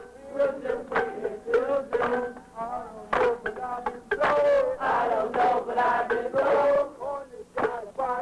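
A man singing over music, with some notes held for a second or more.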